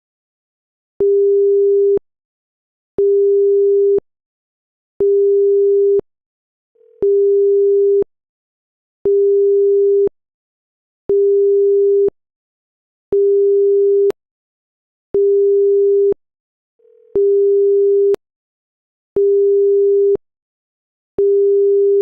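Electronic alarm beeping: a single steady mid-pitched tone, one-second beeps repeated every two seconds, eleven in a row.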